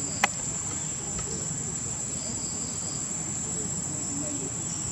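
Steady high-pitched drone of insects, with one sharp click about a quarter of a second in.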